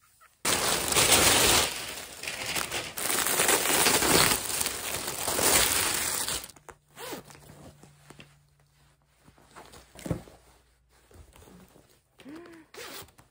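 Loud rustling of clothing handled close to the microphone as a fleece-lined robe is pulled on, for about six seconds. It then gives way to softer rustles and light clicks while the buttons are done up.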